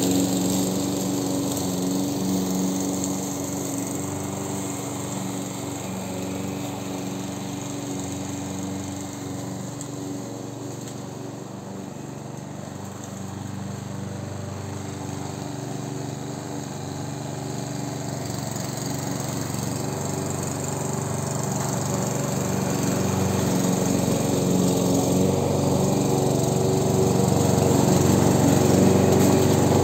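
Petrol walk-behind lawn mower (Amber Line-B Class 4-in-1) running steadily while cutting grass, getting quieter as it moves away and louder again as it comes back.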